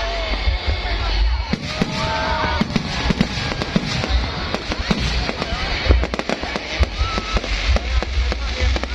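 Fireworks going off: a rapid, irregular series of bangs and crackles, several a second, starting about a second and a half in.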